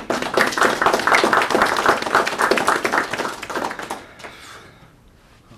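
Audience applauding: dense clapping that starts at once, holds for about three and a half seconds, then dies away about four seconds in.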